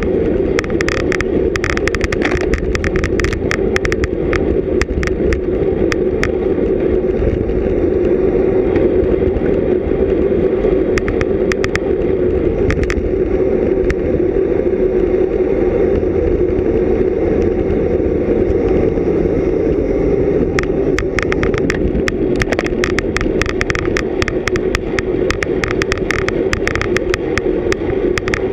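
Loud, steady wind noise buffeting a GoPro action camera's microphone on a road bicycle at racing speed, with road rumble underneath. Stretches of rapid clicking and rattling come through in the first few seconds and again over the last third.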